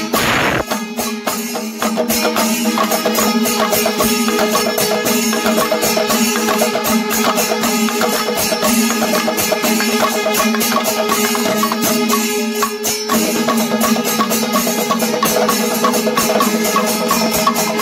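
Panchavadyam ensemble playing: Kerala temple drums and ilathalam cymbals beating a dense, fast, continuous rhythm over a steady held tone.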